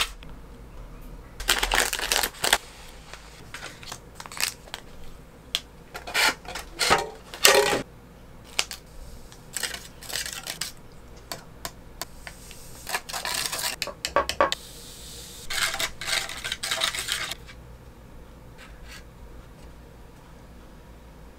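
Handling of a Kracie Tsukameru Fushigidama DIY candy kit: plastic packaging crinkling and small plastic spoons tapping and scraping in the kit's plastic trays while the solutions are mixed. It comes as a string of short crinkles, taps and scrapes that dies down after about seventeen seconds.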